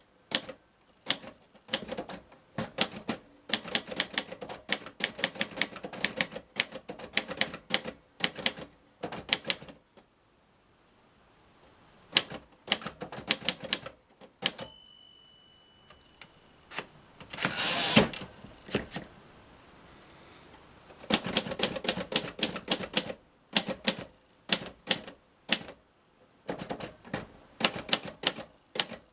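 1951 Royal Quiet De Luxe manual portable typewriter being typed on: fast runs of sharp key strikes with short pauses. About halfway through a short bell rings, and a few seconds later comes a longer sliding rush of the carriage being returned before typing resumes.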